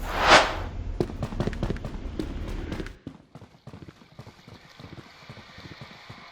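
Sound effects: a whoosh just after the start, then a run of crackling clicks over a low rumble that cuts off suddenly about three seconds in, followed by faint scattered ticks.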